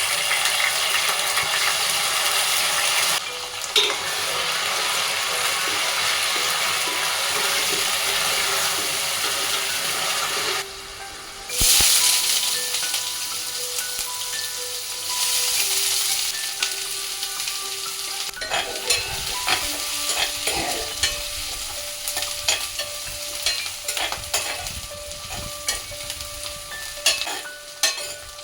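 Food frying and sizzling in hot oil in a pan, stirred with a spatula that knocks and scrapes against the pan. The sizzle is loudest over the first two-thirds, breaking off briefly twice; after that it is quieter and the clicks of the stirring stand out.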